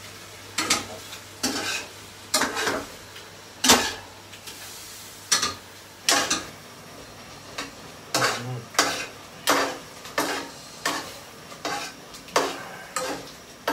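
A spatula and spoon scraping and knocking against a nonstick frying pan as shrimp and basil are stir-fried: short clatters about once a second, coming closer together in the second half, over faint sizzling.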